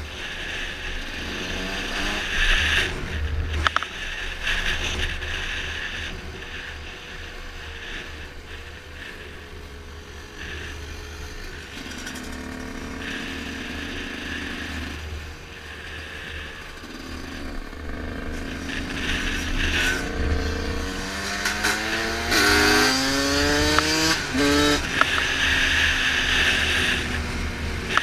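Dirt bike engine running under way, with wind buffeting the helmet-mounted microphone. About twenty seconds in, the engine is opened up hard, its pitch climbing and breaking several times in quick succession as it shifts up through the gears.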